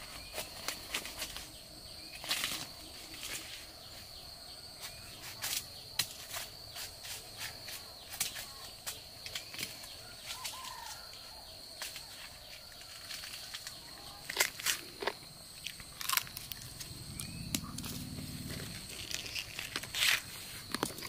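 A knife cutting and hands tearing apart a ripe jackfruit: a string of irregular sharp crackles and snaps as the rind and sticky flesh split. A steady high insect drone runs underneath.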